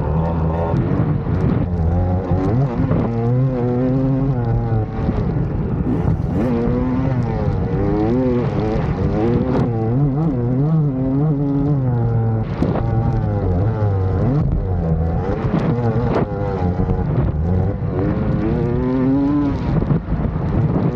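Motocross bike engine at race pace, its pitch rising and falling over and over as the throttle is opened and closed through the gears, with scattered knocks from the track.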